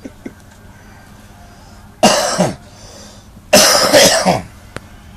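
Dog giving two harsh, raspy barks about a second and a half apart, the second one longer.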